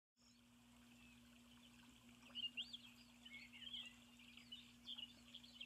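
Faint birdsong: many short chirps and twitters, starting about two seconds in, over a low steady hum.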